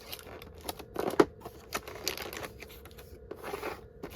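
Irregular light clicks, taps and rustling of cardboard and paper packaging being handled and opened, with one sharper tap about a second in.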